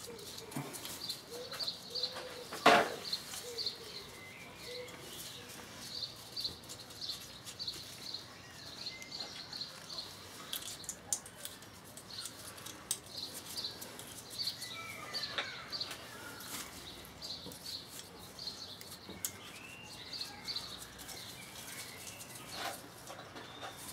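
Birds chirping in short repeated bursts, with small sharp metallic clicks as nuts are fitted by hand onto the studs of a VW Beetle gearbox cover.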